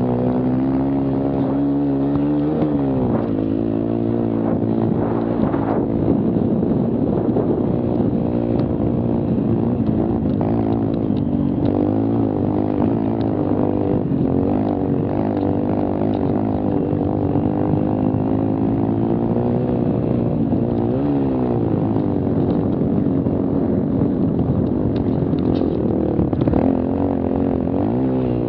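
Mini quad's small engine running hard under throttle, its pitch rising and falling as the rider works the throttle. The revs drop and climb again a few times, once near the start, once about two-thirds through and again at the end.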